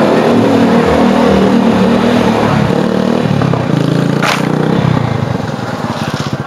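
Motorcycle engine running under way, with wind rushing over the microphone; after about five seconds the engine note drops and settles toward a slow idle as the bike slows to a stop.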